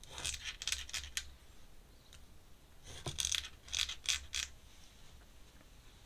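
Brush clinking against a small ink bottle as it is dipped: two quick runs of light clinks, one right at the start and another about three seconds in.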